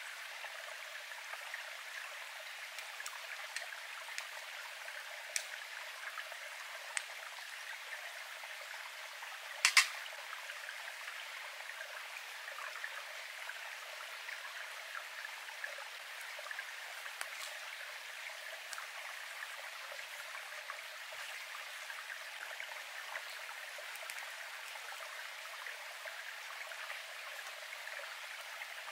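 Small stream running steadily over rocks. A single sharp click about ten seconds in, with a few fainter ticks scattered through.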